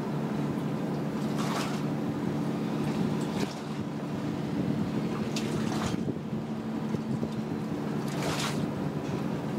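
A vessel's engine drones steadily with a low hum, and brief hisses of wind come and go about four times.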